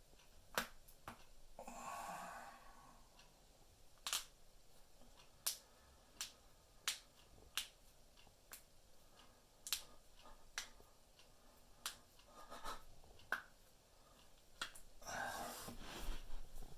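Human joints cracking: about a dozen sharp single pops, irregularly spaced a second or so apart. A soft stretch of hiss, like rustling or a breath, comes about two seconds in and again near the end.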